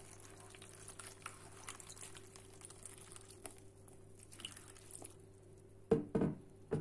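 Water poured in a thin stream onto eggplant slices in a plastic container, trickling and dripping faintly, stopping about five seconds in. A few louder thumps follow near the end.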